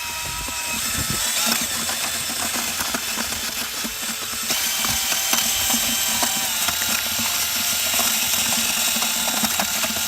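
Small electric cement mixer running, churning dug-out soil and water into a soupy mud slurry, with a steady motor whine that shifts pitch and gets louder about four and a half seconds in.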